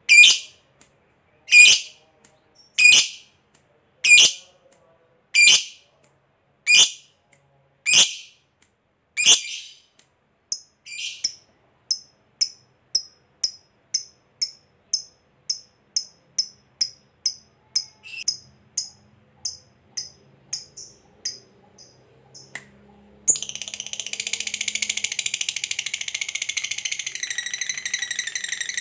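A lovebird calling: loud, sharp single shrieks about every second and a half, then softer, quicker chirps. About 23 seconds in, it breaks into a continuous rapid, shrill chatter, the long 'ngekek' song prized in lovebirds.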